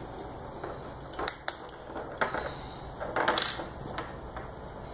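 Small metal parts of a Glock 22 pistol slide clicking and tapping as the firing pin assembly is worked out by hand and set down on a wooden table. There are a few sharp clicks, two close together about a second and a half in, and a short scraping rattle a little past the middle.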